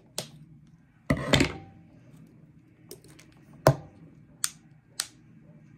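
Scissors cutting through the ties on product packaging: a brief rustle about a second in, then a handful of sharp snips spaced out over the next few seconds, the loudest near the middle.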